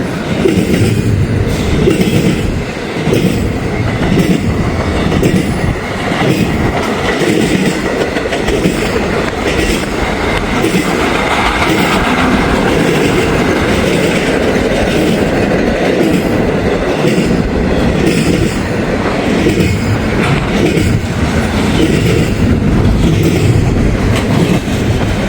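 Freight train's cars rolling steadily past close by, wheels clicking and clacking over the rail joints in a continuous stream.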